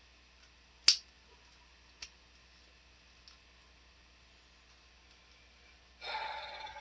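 Plastic action-figure parts being handled: one sharp click about a second in, a fainter click a second later and a third faint tick, then a brief rustle near the end.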